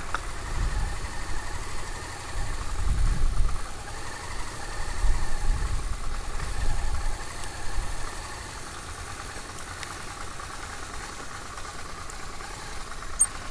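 Honda Transalp 650's V-twin engine running with an uneven low rumble as the bike rolls slowly, settling to a steadier, quieter run about eight seconds in.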